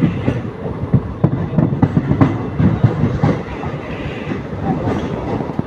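Passenger train coaches running along the track with a steady rumble, the wheels knocking irregularly over rail joints and points.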